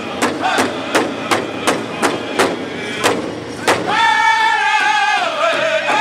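Powwow drum group of men striking a large hide-headed drum together, about three even beats a second, under their singing. About three and a half seconds in the drumming stops, and the voices carry on without the drum, singing a long high line that steps down in pitch.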